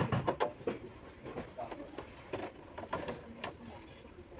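Irregular clicks and knocks of objects being handled, loudest in the first second, with faint voices in the background.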